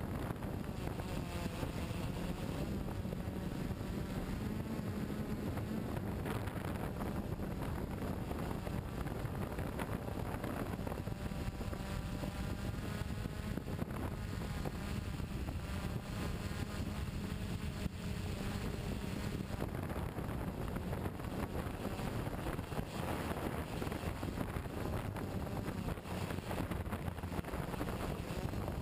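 Onboard sound of a GAUI multirotor drone in flight: the electric motors and propellers give a steady, droning hum, with wind rushing over the microphone.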